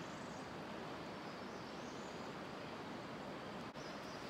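River current rushing over rapids: a steady, even rush of water.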